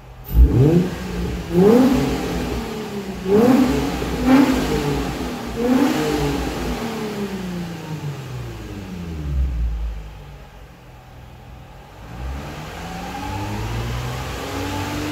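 Exhaust of a 2003 Nissan Fairlady Z (Z33) with its 3.5-litre V6 breathing through an FGK (Fujitsubo) aftermarket muffler, revved while parked: about five quick throttle blips, each rev rising sharply and falling away. It settles back to idle about ten seconds in, then the revs climb slowly and steadily near the end.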